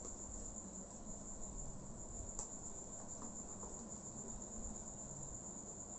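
Faint, steady high-pitched trill with a slight pulse, over quiet room noise, with one faint click about two and a half seconds in.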